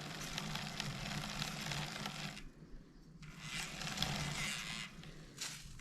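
Greased Shimano XTR FH-M9111 freehub ratcheting, a faint fast buzz of fine clicks. The grease keeps the pawls close to silent. It stops for under a second about two and a half seconds in, then resumes.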